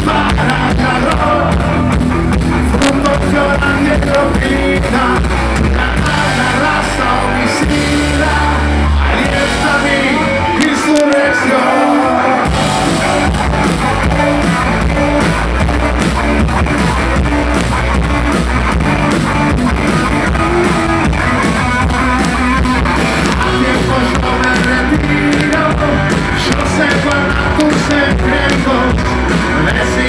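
Live rock band playing loudly through a PA, with electric guitar, bass and drums. The bass drops out for a couple of seconds about ten seconds in.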